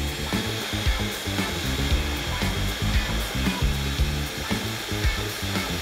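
Food processor motor running steadily, chopping a minced meat and bulgur kibbeh mixture, with background music underneath.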